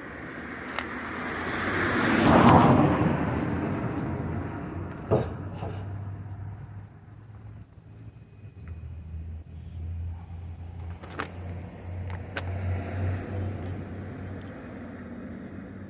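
A passing motor vehicle: its noise swells over about two seconds, peaks and fades away. Afterwards come a few sharp knocks over a low steady rumble.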